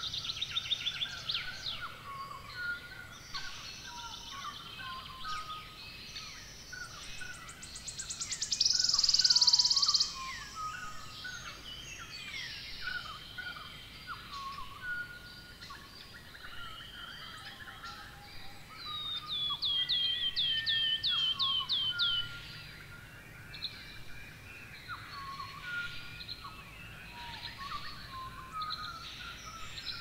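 A busy chorus of birds calling and chirping, many short overlapping calls. A loud buzzing trill comes about nine seconds in, and a quick run of falling chirps, about four a second, around twenty seconds in.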